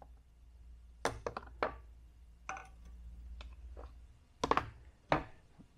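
A wooden instrument case and a steel precision level being handled on a metal surface plate: a series of knocks and clacks. There is a quick cluster about a second in, a few lighter clicks, and two louder knocks near the end.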